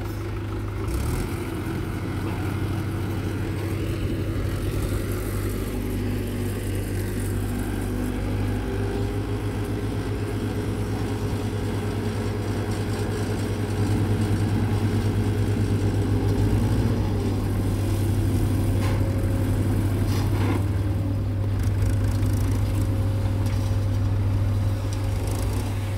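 Farm tractor's diesel engine running steadily while it drives the hydraulic lift tipping a trailer of soil, growing louder about halfway through.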